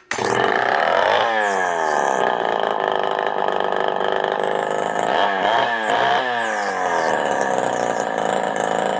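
Homelite XL Automatic two-stroke chainsaw powerhead running with its speed changing. It sweeps in pitch about a second in, then takes several quick throttle blips between about five and six seconds before settling back to a steady run.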